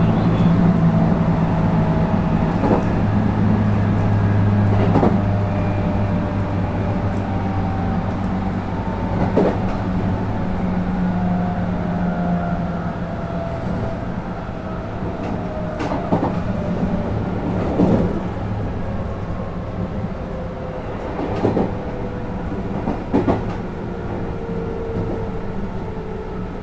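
JR West 221 series electric train running at speed, heard from inside a motor car. The whine of its MT64 traction motors and gears slowly falls in pitch as the train slows, over a steady low rumble, air-conditioning noise and a few scattered knocks and rattles.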